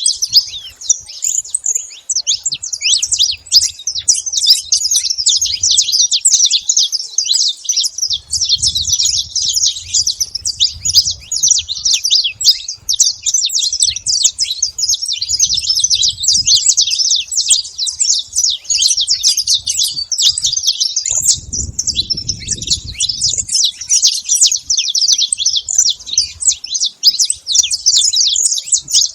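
A flock of saffron finches chirping and calling at a feeding spot, many quick calls overlapping without a break. A low rumble comes and goes underneath.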